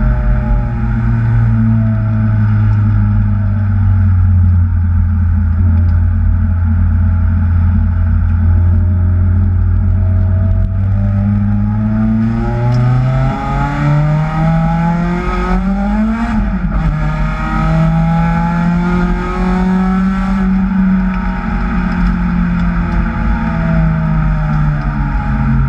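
Kraftwerks-supercharged Acura TSX engine running under load. The revs sit low and steady for about ten seconds, climb to a peak about sixteen seconds in, drop sharply, then hold high before easing down near the end, over a steady hiss.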